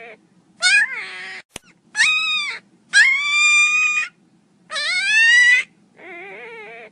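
A pinscher puppy crying loudly in five high whining cries. Some rise sharply and then fall away, the longest is held for just over a second, and the last is quieter and wavering.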